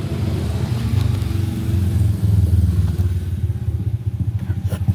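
A motor running with a continuous low hum that wavers in level and breaks into a quick pulsing near the end, with one sharp click just before the end.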